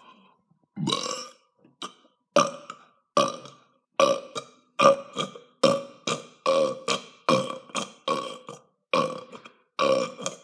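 A person burping over and over, about a dozen short belches at a steady pace of a little more than one a second, the first one longer than the rest.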